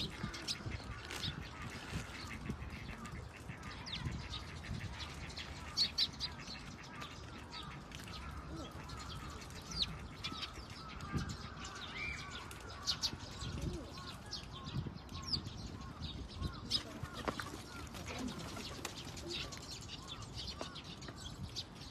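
Birds chirping, many short high chirps scattered irregularly over a low steady background rumble.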